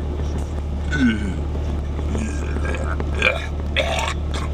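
A man burping, once about a second in and again near the end, over a steady low hum.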